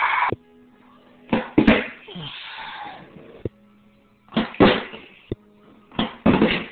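A Tech Deck fingerboard clacking and slapping against a cardboard box and a wooden floor as it is flicked and landed: a few loud knocks in clusters, quiet between them.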